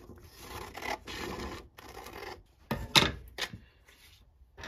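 Scissors snipping through a sheet of printer paper, with the paper rustling, then two sharp knocks about three seconds in.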